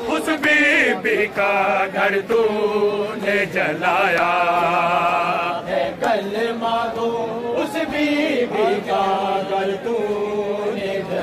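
A group of men chanting a Shia noha (Urdu lament) together, with sharp slaps of hands striking bare chests in matam cutting through the chant.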